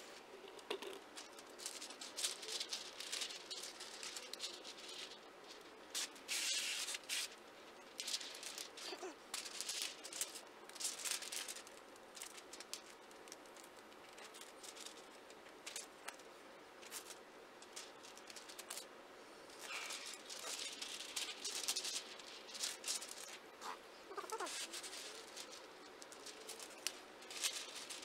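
Plastic window tint film crinkling and rustling in irregular bursts as the sheet is lifted, shifted and pressed against wet window glass.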